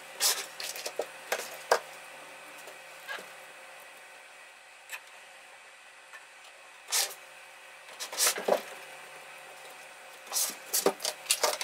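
Scattered clicks and light taps of small-part handling, in clusters near the start, around seven to eight and a half seconds in, and near the end, over a faint steady hum: a new LNK626 DIP chip being fitted into a welding inverter's power-supply circuit board.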